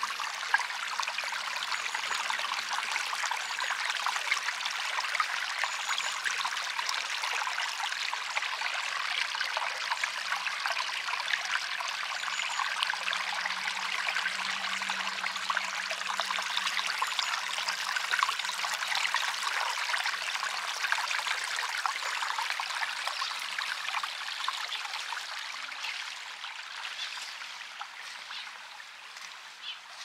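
Small stream flowing and babbling steadily, a dense trickling of water that gets quieter over the last few seconds.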